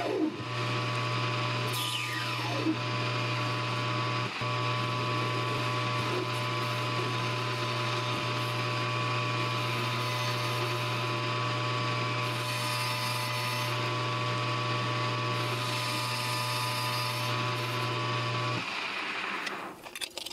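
Metal lathe running steadily while its carbide-insert cutting tool turns down a metal blank, shaving off chips. The lathe stops about two seconds before the end, followed by a few light clinks.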